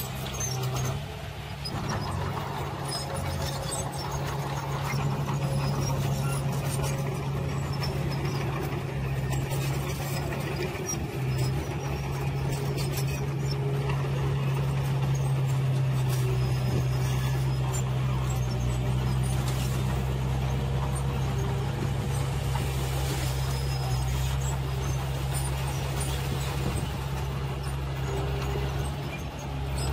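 A dump truck's engine runs steadily at a raised idle, driving the hydraulic hoist as the bed tips and the load of soil is dumped.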